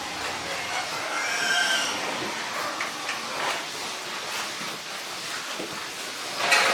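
Pigs squealing, with one high-pitched squeal about a second in, over a steady noisy background. There is a loud sharp knock near the end.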